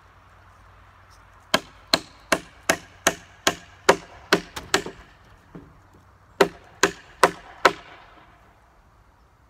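Hammer driving nails into a wooden wall frame: a run of about ten ringing blows, a short pause, then four more.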